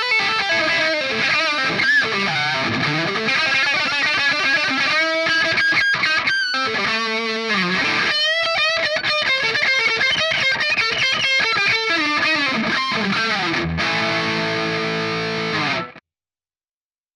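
Electric guitar played through a NUX MG-30 multi-effects processor: a lead line with bent and wavering notes, ending on a held chord that cuts off abruptly about a second before the end.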